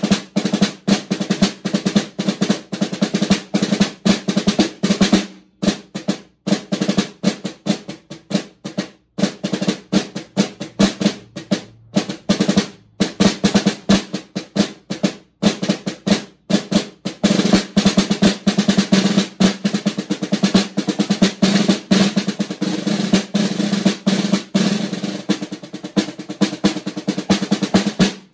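Snare drum played with sticks in a solo: fast strokes and rolls, broken by a few brief stops in the first half and running in long continuous rolls through the second half.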